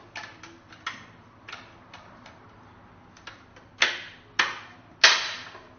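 The two plastic mounting plates of a vacuum docking stand being fitted together and handled: scattered light clicks, then three sharper knocks toward the end.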